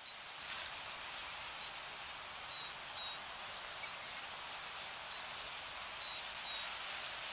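Steady hiss, like rain or wind ambience, with a few brief high bird-like chirps about a second in and again near four seconds in.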